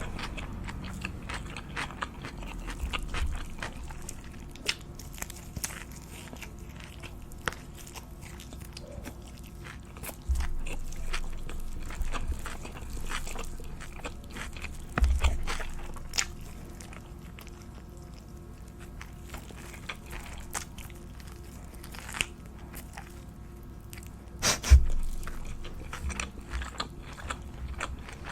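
Close-miked eating: a person biting and chewing crunchy food, with many short crisp clicks and crunches and a few heavier low thumps, the loudest near the end.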